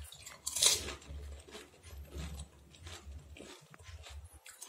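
A crisp phuchka (pani puri) shell crunching loudly as it is bitten, about half a second in, followed by softer wet chewing with small crackles and mouth clicks.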